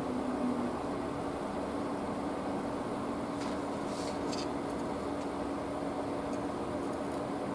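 Steady room hum, with a few faint light clicks of small steel knife parts being handled a few seconds in.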